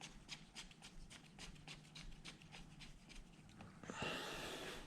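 Faint rhythmic clicking, about four clicks a second, as a tool works the freshly lubed handguard bar-end bolt, then a short rustling hiss about four seconds in.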